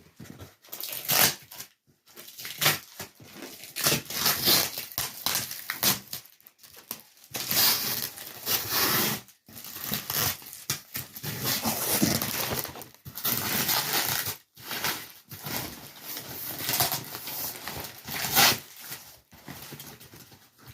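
A cardboard box being opened by hand, with tape tearing and cardboard and plastic packaging crinkling and rustling in irregular bursts.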